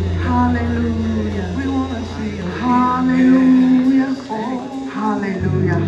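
Church worship music: a man singing long held, gliding notes over sustained low instrumental notes. The low accompaniment fades about two seconds in, and a new low note enters near the end.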